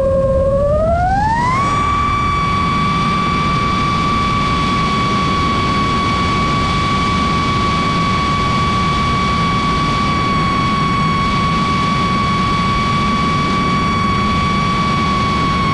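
Brushless motors and propellers of an iFlight Nazgul5 Evoque 5-inch FPV quadcopter whining in flight. The pitch rises over about a second near the start as the throttle goes up, then holds steady.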